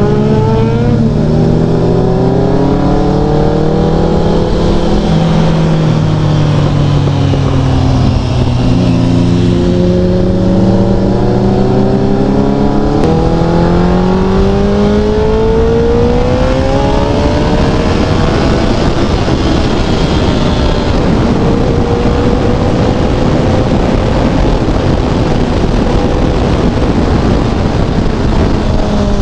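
Suzuki Hayabusa's inline-four engine heard from the rider's seat at highway speed, over steady wind rush. The engine note rises and falls several times, then holds fairly steady through the second half.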